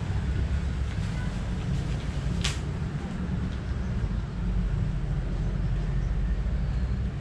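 Wind buffeting the microphone in a steady low rumble while a pop-up dome tent is handled. One sharp click about two and a half seconds in, from the tent's frame or fittings.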